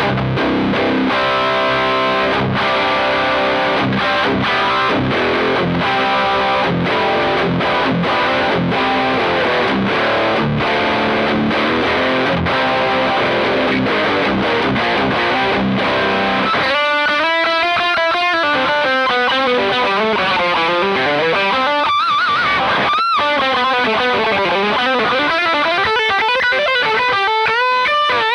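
Heavily distorted electric guitar, an LTD Super Strat with EMG 81 active pickups played through a Fender Hot Rod Deluxe IV tube combo set for a metal tone: chugging, muted riffs at first, then, past the middle, a single-note lead with wide vibrato and string bends.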